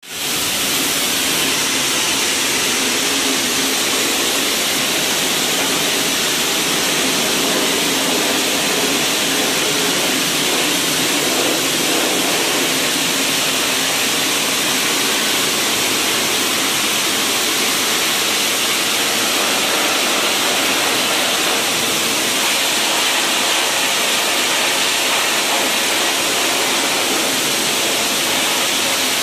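High-pressure water jetter wand spraying into a metal channel drain, a loud steady hiss and rush of water blasting grease and grime off the channel. The spray starts abruptly as the trigger is pulled and holds steady.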